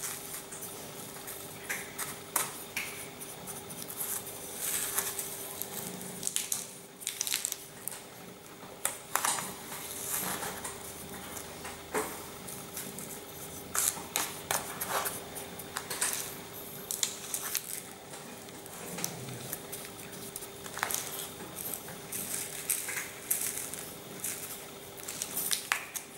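A metal spoon scraping, pressing and tapping through granular salt-and-sugar curing mix in a thin plastic tray, packing it over pork loin. Irregular gritty scrapes and sharp clicks.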